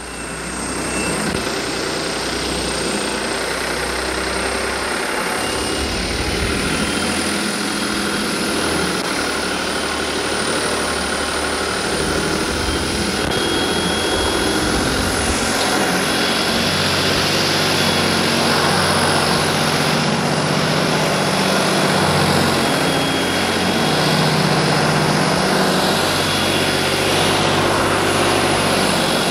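Turbocharged Farmtrac 45 tractor's diesel engine running steadily under load while pulling a cultivator through tilled soil, getting slightly louder as the tractor comes closer.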